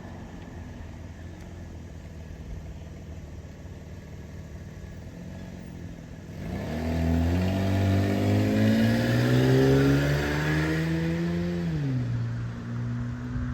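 An engine running steadily at low speed, then revving up about six seconds in. Its pitch climbs for about five seconds, drops sharply, then holds steady.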